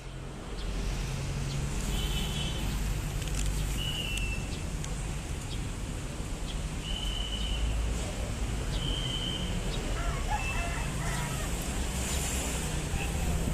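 Diesel engine of a railroad excavator running steadily with a low drone, with a few short high chirps above it.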